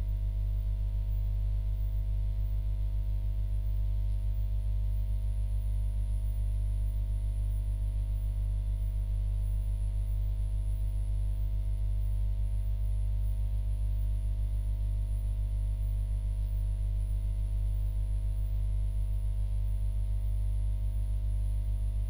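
Steady low electrical hum with thin, unchanging higher tones and a faint high whine above it.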